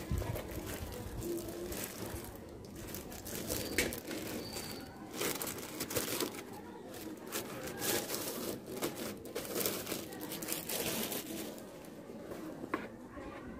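Clear plastic film crinkling and crackling as it is peeled off and pulled away from a flat metal plaque, in irregular uneven crackles.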